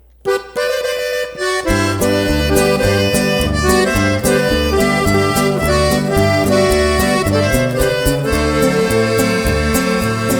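Instrumental intro of a norteño song, with the accordion leading the melody. A bass line and a steady beat come in about a second and a half in.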